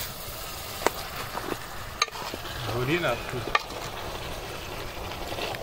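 Chicken pieces and tomatoes sizzling in a metal pot over a wood fire while a metal spoon stirs them, clinking sharply against the pot a few times.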